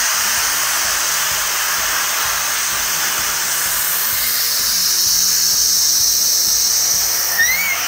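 Compressed-air blow gun hissing steadily as it blasts dust out of a car door's seams and panel gaps.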